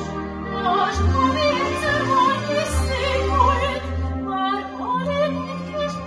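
Operetta duet: a singing voice with vibrato over a full symphony orchestra.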